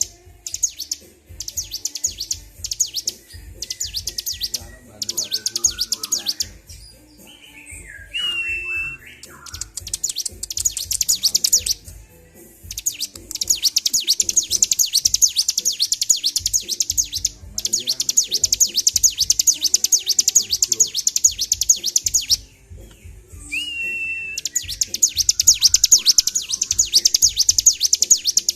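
Bar-winged prinia (ciblek) singing continuously in runs of very fast, high chattering notes, each run a few seconds long with short gaps. A short whistled note comes twice, near the start and about three quarters of the way through. The bird is in high excitement and sings without stopping.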